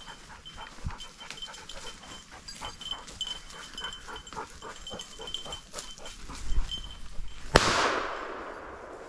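A dog panting rapidly, then a single shotgun shot about seven and a half seconds in, which rolls away in a long fading echo through the woods. The shot misses the flushed grouse.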